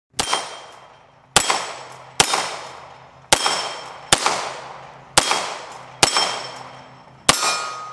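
Beretta 92X Performance 9mm pistol firing eight shots, spaced roughly a second apart, each trailing off in a long echo.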